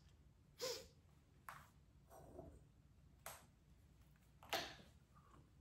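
Near silence: room tone with about five faint, short handling sounds spread through it, the one near the end the loudest.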